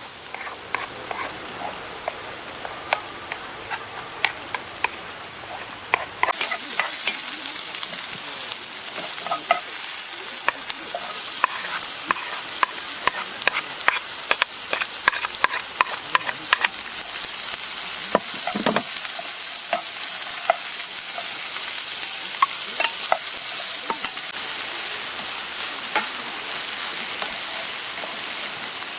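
Food frying: a steady sizzle with many small pops and crackles. The sizzle gets louder about six seconds in and eases back a little near the end.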